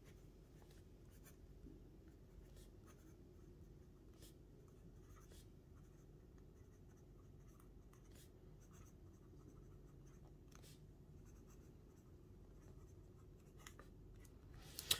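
Faint scratching of a Lamy Safari fountain pen's fine steel nib writing on Rhodia dot pad paper: a run of short, light pen strokes. It is the slight audible feedback of a nib that still writes smoothly.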